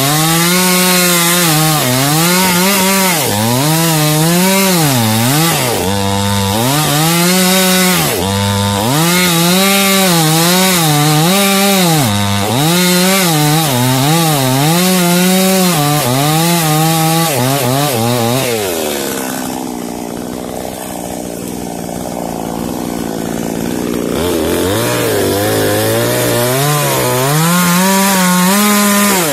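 Small two-stroke chainsaw cutting into a tree trunk, its engine speed wavering up and down as the chain bites into the wood. About 19 s in it eases off to a quieter, lower run for several seconds, then revs back up near the end.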